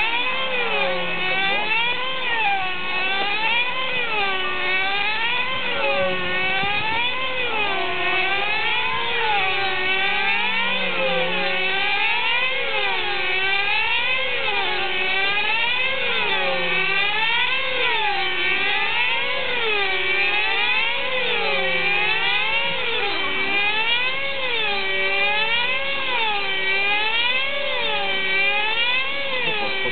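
Control-line stunt model aircraft's motor running steadily as the plane circles the pilot. Its pitch rises and falls about once every two seconds, lap after lap.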